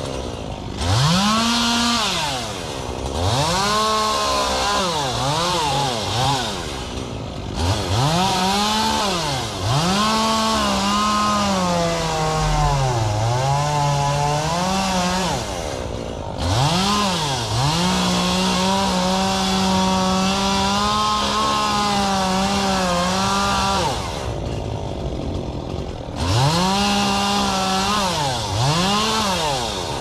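Two-stroke chainsaw cutting palm fronds, revved up and let off again and again. The engine pitch sags under load in the middle, then holds steady at full throttle for several seconds, drops briefly to idle near the end and revs up again.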